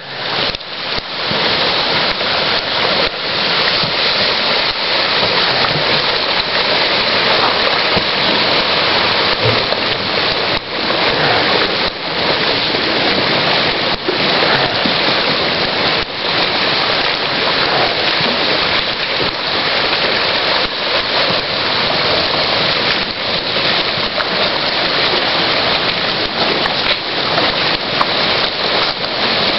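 Loud, steady rush of a flooded creek carrying the broken ice floes of an ice jam, with frequent short knocks and cracks of ice throughout.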